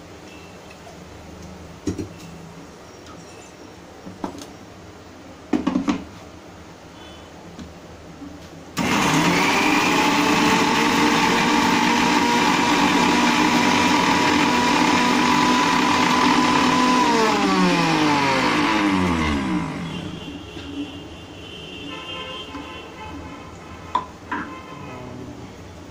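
A Preethi mixer grinder grinding coconut-tomato chutney. After a few light knocks as the jar is set in place, the motor starts abruptly about nine seconds in and runs steadily and loud for about eight seconds. It is then switched off, and its whine falls in pitch over about two seconds as it spins down, followed by a few light clinks.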